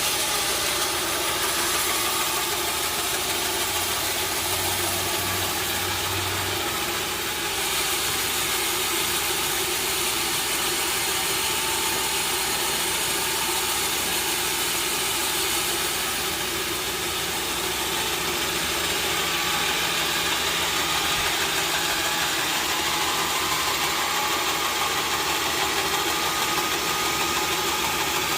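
Sawmill machinery running steadily: a continuous engine-like drone with a hiss over it and no separate knocks or strikes.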